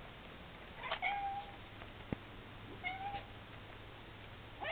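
Domestic cat meowing: two short meows, about a second and about three seconds in, with a third starting right at the end.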